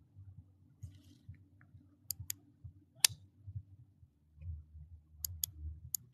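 A few sharp, small clicks: a pair about two seconds in, a louder single click a second later, and another pair and a single near the end. Under them is faint low rustling of movement.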